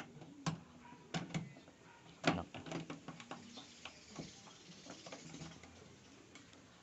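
Irregular metallic clicks and light scraping as a wire is worked inside the rear-hatch door latch of a Toyota van to trip the lock, with one sharper click a little over two seconds in.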